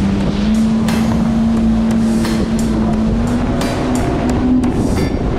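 Kawasaki Ultra LX 160 jet ski's four-cylinder engine running at speed, a loud steady drone holding one pitch, over the rush of water and wind.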